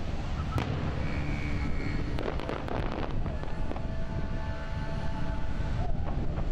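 Distant aerial firework shells bursting: a sharp crack about half a second in, then a spell of crackling about two to three seconds in, over heavy wind rumble on the microphone.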